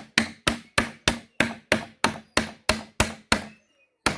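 Hammer repeatedly striking a wooden wedge driven into the gap between a pallet plank and its frame, forcing the board away from its nails. A fast, even run of sharp knocks, about three a second, that stops about three and a half seconds in, then starts again at the very end.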